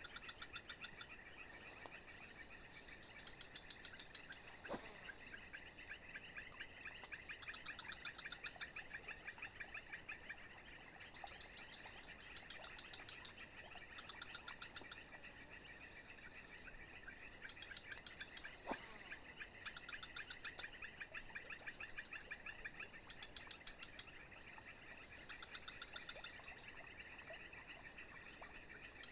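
Dense chorus of insects: a loud, steady, high-pitched buzz with softer rapid pulsing trills beneath it. Two faint clicks, about five seconds in and again near nineteen seconds.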